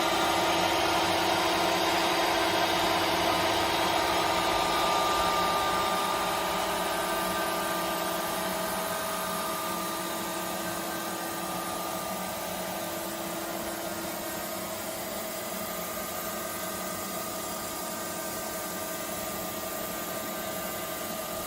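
Nomura NN-32YB2 CNC Swiss-type lathe running: a steady machine hum with several steady tones over a noisy whir, growing quieter between about six and ten seconds in and then holding level.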